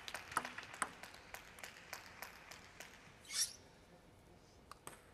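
A run of light, sharp clicks and taps in a table tennis hall, two or three a second, fading away. A short hiss comes about three and a half seconds in, and two more clicks near the end.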